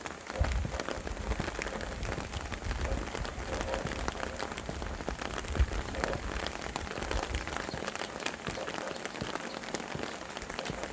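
Steady rain falling, with many small drops pattering close by, and wind rumbling low in the first couple of seconds before it eases.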